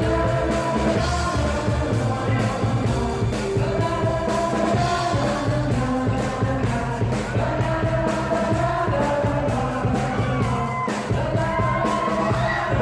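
Live band playing with a lead singer, drums and bass, in a rock style, heard through a phone's microphone from the stage, so the sound is thin and of poor quality.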